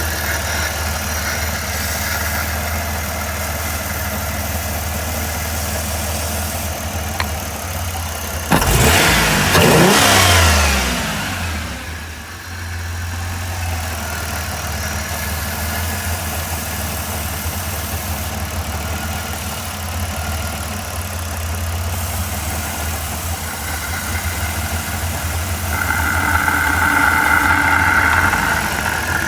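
1994 Chrysler Town & Country van's V6 engine idling steadily, revved up briefly about nine seconds in, then sagging in speed before settling back to idle; a higher tone builds near the end.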